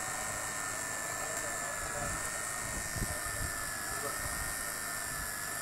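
Steady background noise: a low rumble and hiss with a faint, slightly wavering high whine running through it, and no distinct event.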